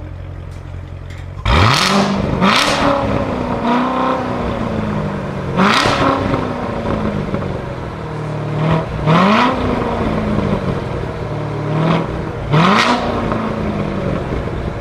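A supercar engine is revved four times while stationary. Each time the pitch leaps up quickly and then falls back toward idle, with loud sharp exhaust cracks at each blip.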